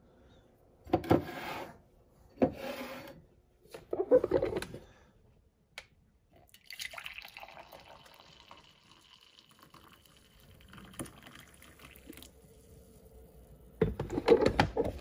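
Hot coffee pouring from a glass drip-coffee-maker carafe into a ceramic mug, a steady trickle lasting several seconds. Handling knocks and clinks of the carafe and mugs come before it, and a louder clatter near the end as the carafe is set back on the coffee maker.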